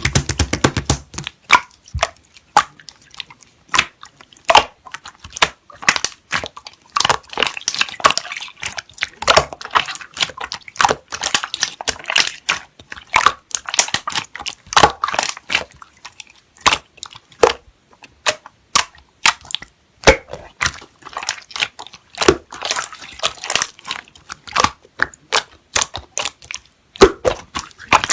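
Hands pressing and squishing slime, making a quick, irregular stream of sticky clicks and pops.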